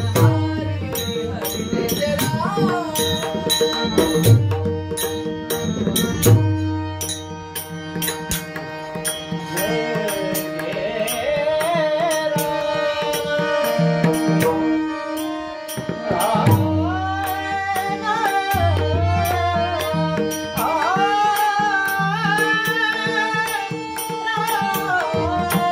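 Marathi Warkari bhajan music: a classical-style voice singing a gliding, ornamented melody over pakhwaj (mridang) strokes and steady held tones. The drumming is heavier in the first few seconds, and the singing grows stronger about halfway through.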